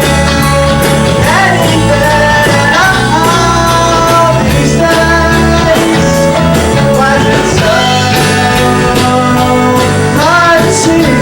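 Live rock band playing: electric guitar, bass and drums with a steady beat, and a singer's voice gliding between notes.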